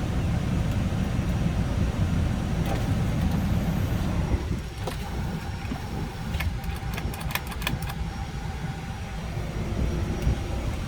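Hyundai H1 Starex's 2.5-litre turbo-diesel engine idling steadily, with a few light clicks about three seconds in and again around the middle.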